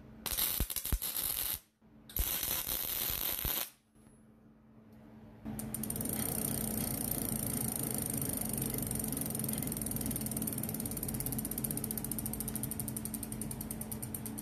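Two crackling bursts of MIG welding, each about a second and a half long, tacking a steel sprocket onto a wheel hub. After a short pause comes a steady mechanical hum with very fast, even clicking.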